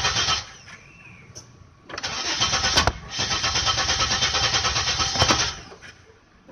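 A Chevrolet Monte Carlo being cranked without catching: a burst of cranking that stops about half a second in, then a longer crank of about three and a half seconds, with a quiet gap between. The engine turns over but won't start.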